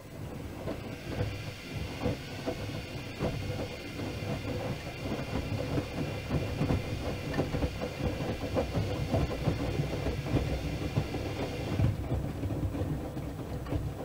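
Miele W5000 front-loading washing machine's drum starting to turn and tumbling wet, sudsy laundry through the wash water: splashing and irregular thudding, with a steady high whine that cuts off about twelve seconds in.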